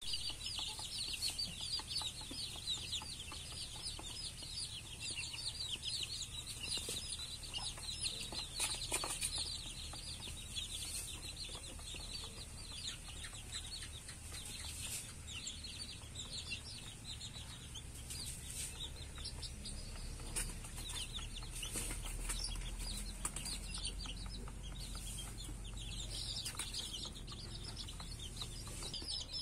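A brood of young chicks cheeping without a break, many short high peeps overlapping.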